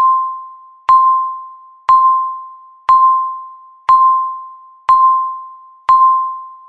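Countdown timer beep: a single electronic tone struck once every second, seven times, each with a sharp start and a ringing fade before the next.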